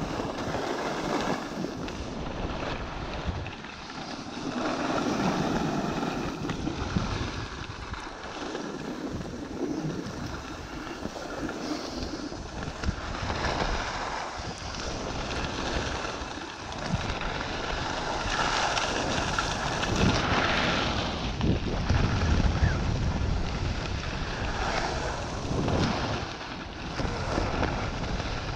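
Wind rushing over the microphone while skiing downhill, with skis sliding over the snow. The rush swells and fades with the turns and is strongest in the second half.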